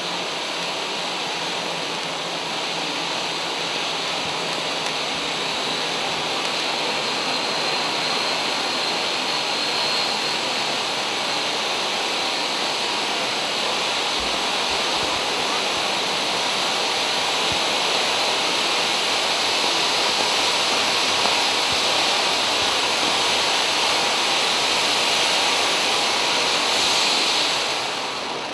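11-inch silver volcano fountain firework hissing steadily as it sprays its column of sparks, dying away near the end as it burns out.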